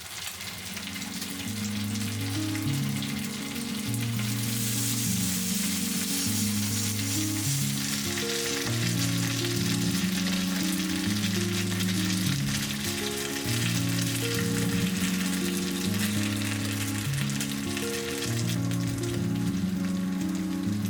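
Food sizzling and frying on a hot grill plate, the sizzle swelling louder about four seconds in. Background music with a repeating bass line plays under it.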